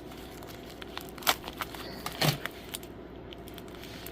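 A package being cut and torn open with a knife: irregular scrapes, clicks and tearing of tape and packaging, with louder strokes about a second in and again a little after two seconds.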